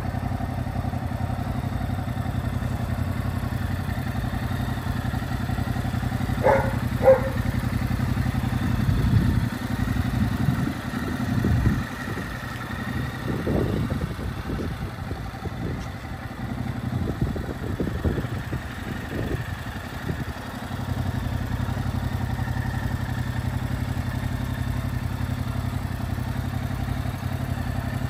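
Yamaha MT-07's 689 cc parallel-twin engine idling steadily. About six and seven seconds in come two short sharp sounds, and through the middle stretch the steady rumble is broken by irregular louder noise.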